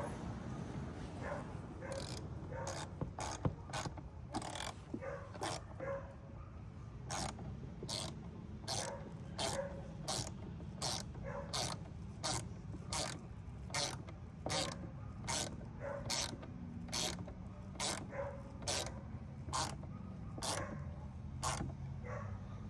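Hand ratchet wrench clicking in short bursts, one stroke a little under every second, starting about two seconds in, as it drives the sensor's mounting screws.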